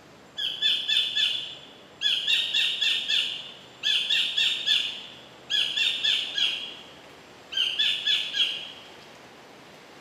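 Collared kingfisher calling: five phrases, each a quick run of four to six repeated loud notes, starting about every two seconds.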